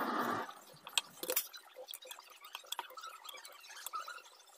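Faint, irregular clicks and light knocks of a wooden rolling pin on a round wooden board as a stuffed dough ball is flattened and rolled out, with a couple of louder knocks about a second in.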